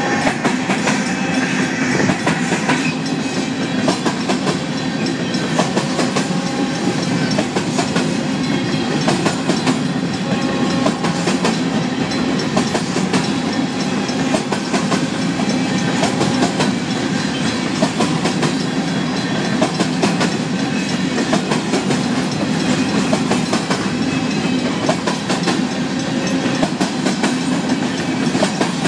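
Covered hopper cars of a grain train rolling past at steady speed, their wheels clattering in a rapid, unbroken clickety-clack over a steady rumble.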